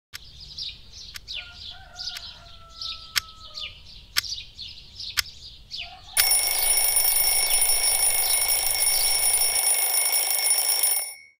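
Twin-bell wind-up alarm clock ticking about once a second under faint chirping birdsong, then its bells ring loudly and steadily from about six seconds in. The ringing cuts off suddenly near the end as it is switched off.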